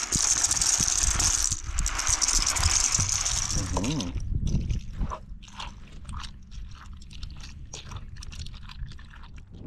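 Dry pasta shells pouring from a cardboard box into a cast iron Dutch oven, a dense rattling rush. About four seconds in it gives way to a wooden spoon stirring the pasta into the sauce and vegetables, with repeated scrapes and clicks against the pot.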